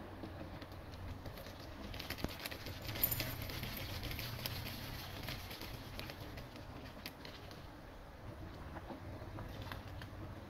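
Metal ladle stirring and dipping in a pot of soup, giving scattered small clicks and liquid sounds. The clicks come thickest a couple of seconds in.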